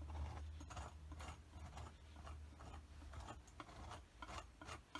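Faint, irregular light ticks and rubbing from paint being worked over a gelli plate, about two or three a second, over a low steady hum.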